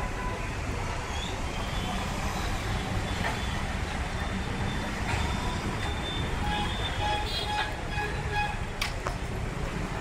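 Busy street traffic: motor scooter and car engines running and passing close by, a steady rumble of mixed engine and road noise. A few short pitched notes, like horn toots or a snatch of music, sound in the second half.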